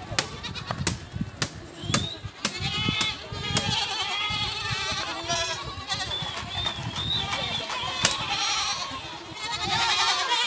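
A herd of goats and young kids bleating, many calls overlapping one another. In the first couple of seconds sharp knocks come about every half second beneath the calls.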